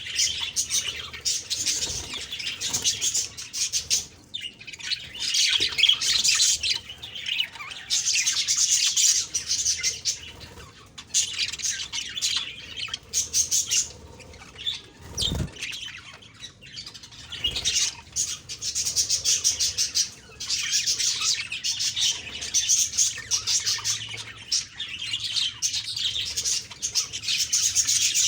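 Budgerigars chirping and warbling in fast, high, chattering bursts with short pauses between them. There is a brief low thump about halfway through.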